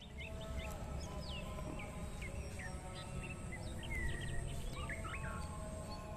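Birds chirping with many short, quick rising and falling calls, over a low background rumble.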